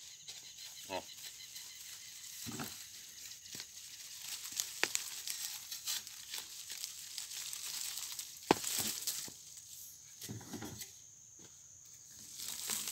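Metal digging bar prying into hard, dry soil around a cassava root, with dirt crackling and crumbling and scattered small knocks; one sharp strike a little past the middle is the loudest. Near the end, soil crumbles as the root is worked loose by hand.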